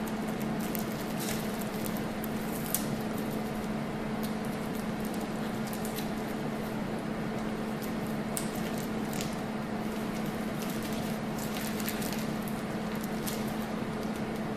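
Clear plastic camera drape crinkling in short, scattered rustles as gloved hands work it over an endoscope camera head, over a steady hum and hiss.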